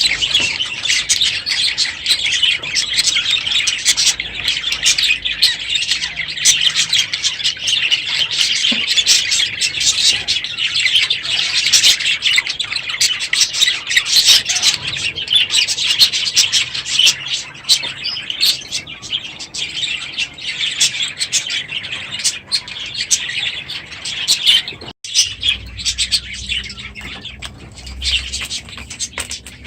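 A flock of budgerigars chattering and chirping continuously, many calls overlapping. The sound breaks off for an instant about 25 seconds in and then carries on a little quieter.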